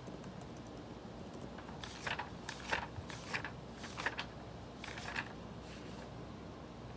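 Pages of a thick paper notebook being flipped by hand: a run of short, quick papery rustles between about two and six seconds in.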